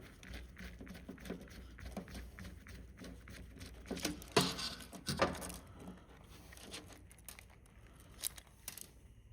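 Light clicking and rustling of a disassembled remote control's plastic casing and circuit board being handled, with a few sharper clicks about four to five seconds in and again near the end.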